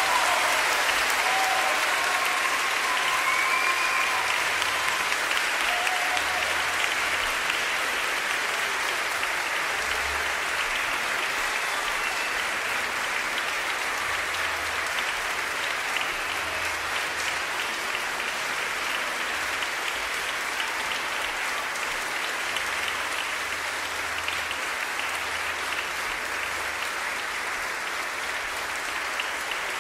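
Concert audience applauding steadily, gradually getting a little quieter, with a few faint calls or whistles in the first few seconds.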